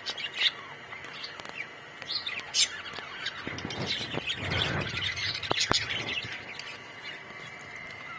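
A colony of budgerigars chirping and warbling, with sharp squawks now and then; the chatter thickens into a dense warble from about three and a half to six and a half seconds in. A faint steady high tone runs underneath.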